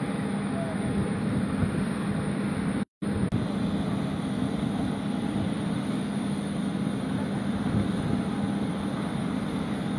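Steady hum and rush of a parked airliner's turbine running on the airport apron. The sound cuts out for a moment about three seconds in.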